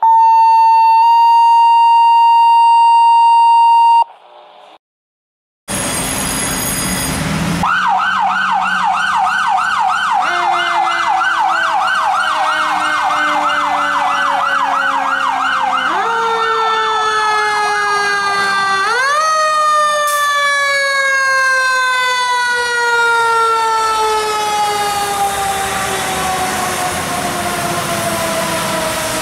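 Opens with a steady electronic tone held for about four seconds, then a short silence and a brief horn blast. Then responding fire apparatus sirens: an electronic siren in a fast yelp, joined by a mechanical siren whose pitch slowly falls as it coasts down, is pushed back up twice, and keeps winding down.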